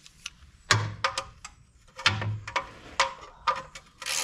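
Wrench and metal fittings clinking and knocking in about seven irregular sharp strikes, some with a short ring, as the oil drain plug is put back and tightened on the underside of a John Deere Gator 825i.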